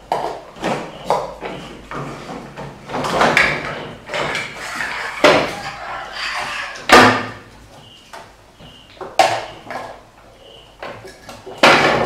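Plastic toy truck pushed, dragged and bumped about on a wooden platform by baby monkeys: irregular knocks and rattles against the wood, the loudest about seven seconds in.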